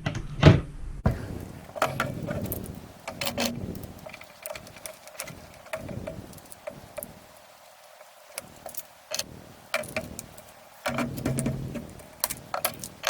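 Irregular metallic clicks and clinks of GSG-16 .22 rifle parts being handled and worked during disassembly. They ease off for a couple of seconds in the middle.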